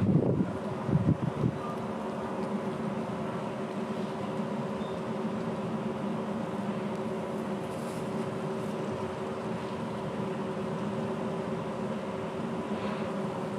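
Steady mechanical hum with several held tones, with a few low gusts of wind on the microphone in the first second and a half.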